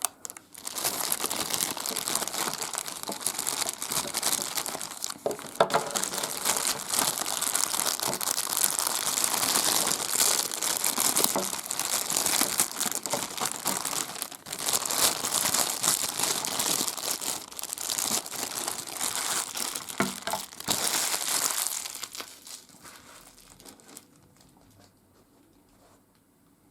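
Plastic packaging crinkling and rustling as a boxed prize figure is unwrapped by hand, continuous for about twenty seconds and then dying away.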